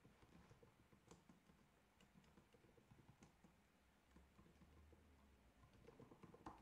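Near silence with faint, irregular clicks of typing on a computer keyboard.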